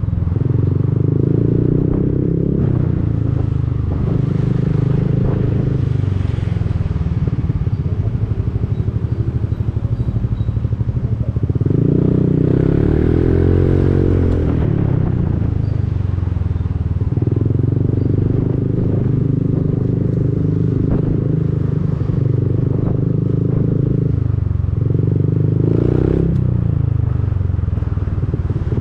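Honda Forza 300 scooter's single-cylinder engine running through an Arrow aftermarket exhaust, pulling steadily in traffic. About halfway through the engine note swings up and down as it speeds up and eases off.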